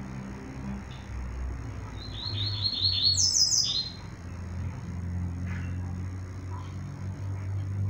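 Caged papa-capim (Sporophila seedeater) giving a quick run of short, high chirps about two seconds in, lasting around a second and a half, over a low steady hum.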